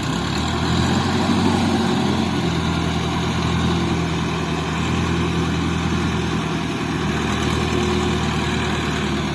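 Diesel engine of a Hydra mobile crane running with a steady hum. It picks up revs right at the start and then holds an even speed.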